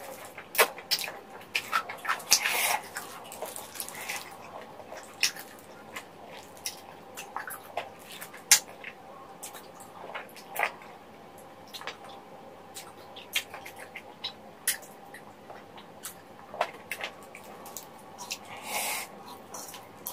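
Close-up eating sounds of someone gnawing and sucking on sauce-covered chicken feet and rice cakes: irregular wet smacks and clicks of lips and teeth, with a couple of longer sucking sounds, one near the start and one near the end.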